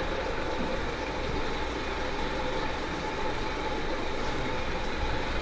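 Steady background noise with a faint continuous hum and no distinct events.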